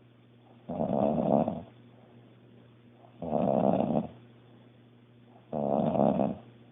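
A woman snoring loudly in her sleep: three long snores of about a second each, coming every two and a half seconds or so, with quiet breaths between.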